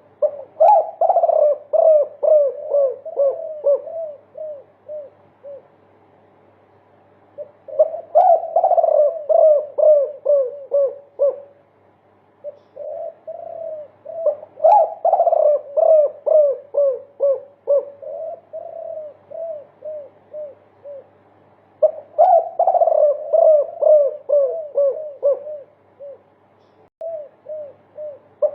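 Spotted dove (derkuku) cooing in a 'multi kuk' song: runs of many quick, repeated coo notes, about three a second, each run lasting a few seconds with short pauses between.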